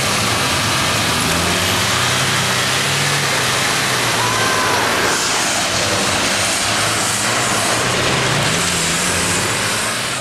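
A 4x4 SUV's engine working hard under load while the vehicle is pulled or pulls up a loose slope on a tow strap, with its wheels spinning in the dirt. The sound is loud and steady, and its character changes about halfway through.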